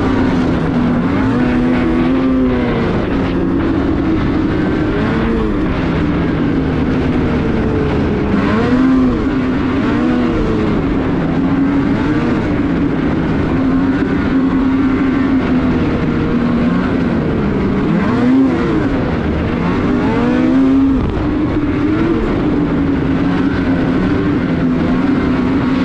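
Lynx Rave snowmobile engine running under way, its pitch rising and falling again and again as the throttle is opened and eased off.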